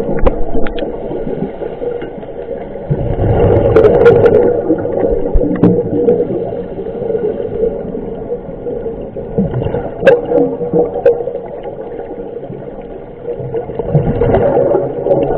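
A scuba diver's breathing heard underwater: the regulator hisses on each inhale, and exhaled bubbles gurgle out in a surge about every five seconds, with a few small clicks against the camera housing.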